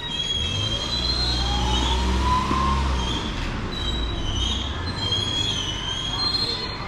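A train running nearby: its wheels squeal in high, wavering tones throughout, over a low rumble that fades after about three seconds, with a motor whine rising in pitch during the first couple of seconds.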